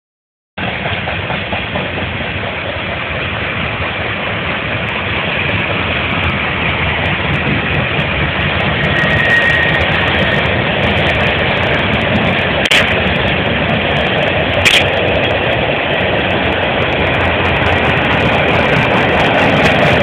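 Freight train cars rolling past, a steady rumble that slowly grows louder, with two sharp clicks about two seconds apart midway.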